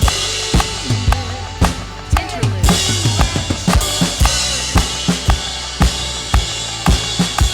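Drum kit played along with a worship band track in an instrumental passage: steady kick and snare hits over bass and keys, with a cymbal wash coming in about two and a half seconds in.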